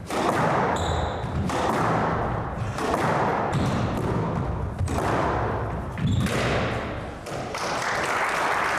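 Squash rally: the ball is struck by rackets and hits the court walls in sharp knocks about every second or so, with a couple of short shoe squeaks on the wooden floor. Near the end the rally is over and the audience applauds.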